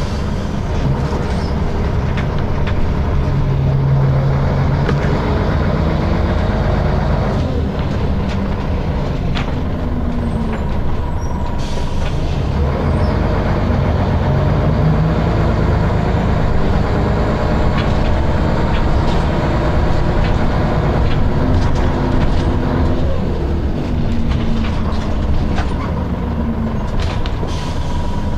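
Scania L94UB bus heard from inside the saloon: the diesel engine and ZF automatic gearbox whine while the bus drives, the pitch rising and falling several times as it speeds up, changes gear and slows.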